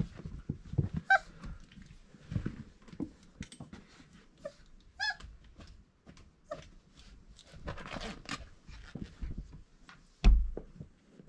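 Four-week-old Irish Setter puppies playing: a few short, high squeals, the clearest about a second in and about five seconds in, among scuffling and small bumps on their bedding. A loud thump near the end.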